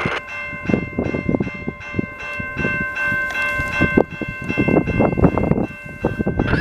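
Railway level-crossing warning bell ringing steadily for an approaching train, several high tones held together, over uneven low rumbling.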